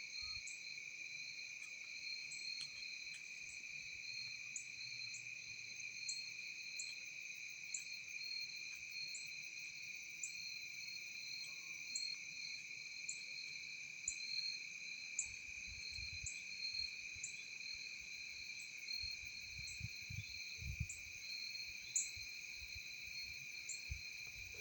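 Chorus of crickets and other insects: steady shrill trilling at several pitches, with one chirp repeating regularly above it. A few soft low bumps come in the second half.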